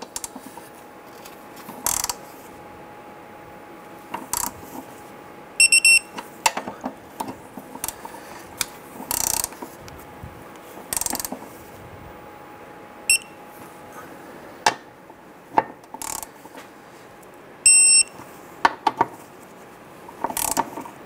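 Digital click-type torque wrench tightening bolts to a set 41 ft-lb: ratchet clicks and small knocks of the wrench and socket, and three short bursts of high electronic beeps as it signals that each bolt has reached the set torque.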